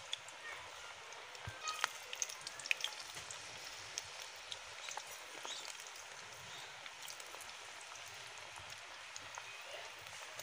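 Batter-coated potato fries sizzling in hot oil, a steady faint hiss with small crackles and pops, a little busier in the first few seconds as more pieces are lowered in.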